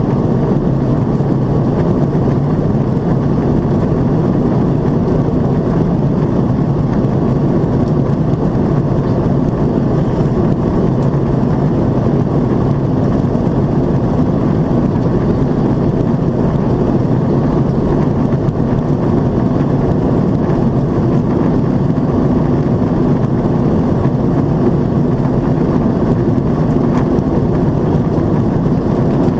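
Steady cabin noise of an Airbus A330-300 climbing at high altitude: engine and airflow noise heard inside the cabin at a window seat, a dense low rushing hum that does not change.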